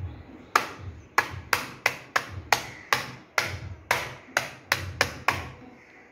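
A palm slapping a flat hexagonal wall-art panel against a wall, about fourteen sharp taps at an uneven pace over some five seconds, pressing it onto the wall to mount it.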